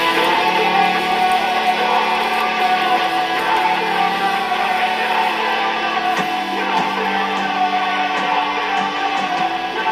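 Background music led by guitar, playing steadily at a high level.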